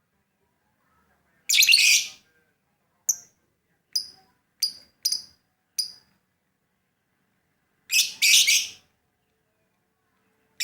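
Lovebird calling: a harsh, buzzy burst of calling, then a run of five short, sharp chirps, and two more harsh bursts near the end.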